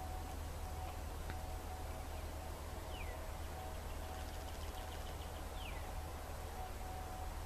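Distant Federal Signal 2001-130 outdoor warning siren sounding its steady alert tone, faint and fading in and out. Two short falling bird chirps come about three and six seconds in.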